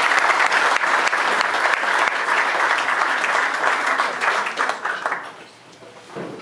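A small seated audience applauding: steady hand-clapping that dies away about five seconds in.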